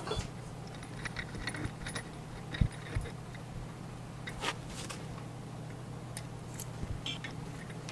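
Small metal clicks and clinks as the steel threaded rod and aluminium parts of a home-made sight pusher tool are handled and fitted together, with a couple of sharper knocks between two and a half and three seconds in. A steady low hum runs underneath.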